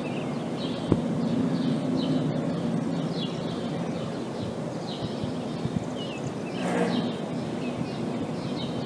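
Steady low hum of a truck-mounted refrigeration unit, broken about a second in by one sharp, loud knock, the kind of impulsive bang these refrigerated containers give off. Small birds chirp over it throughout, and a brief rushing noise swells and fades about two-thirds of the way through.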